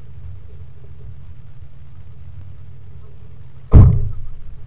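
A 4x4's engine running with a steady low rumble, and one loud sudden thud near the end.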